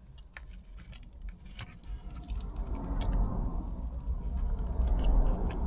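Someone eating barbecued pork with their fingers from a takeaway container: scattered small clicks, crackles and squishy handling and chewing sounds, over a low rumble that grows louder toward the end.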